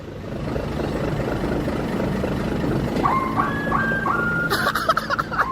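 A truck's engine running with an even rumble, then about three seconds in a telolet horn starts playing a tune of short held tones that jump between a few pitches. Short sharp bursts of noise join in near the end.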